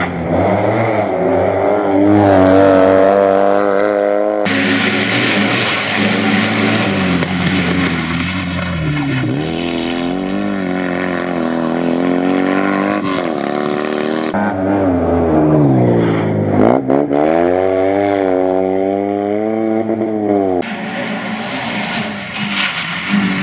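Rally cars' engines at full throttle, including a Fiat 126p and a Renault Mégane. The pitch rises and falls repeatedly through gear changes and lifts, and the sound jumps abruptly from one car to another several times.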